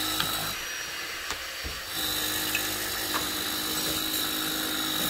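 A steady high whine over a hiss, dropping out for about a second and a half shortly after the start, with a few faint clicks and scrapes of a screwdriver picking at termite-eaten wood in a window frame.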